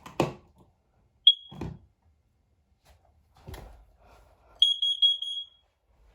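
Carbon monoxide alarm sounding on test: one short high-pitched chirp about a second in, then a quick run of about five high beeps near the end. A few knocks from handling the unit come in between.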